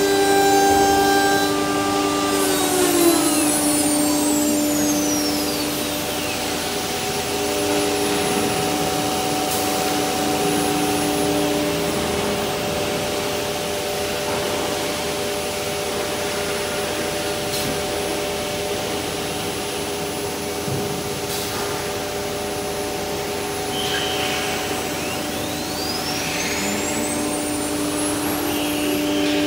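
CNC router spindle winding down with a falling whine early on, over a steady hum and hiss of dust extraction. Through the middle the linear automatic tool changer swaps tools, with a few sharp clicks. Near the end the spindle spins back up with a rising whine.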